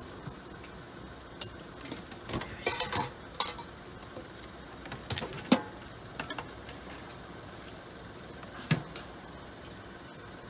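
Ramen stall cook's metal ladle, pots and bowls clinking and knocking as he ladles stock and sets out ramen bowls: a string of short knocks, the sharpest a little past halfway and another near the end, over a steady low hum.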